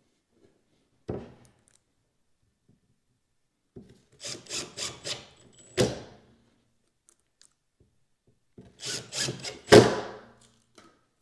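Plastic drawer-glide brackets being pressed and snapped into holes in a cabinet back panel: a knock about a second in, then two runs of quick clicks, each ending in a sharp snap, the last snap the loudest.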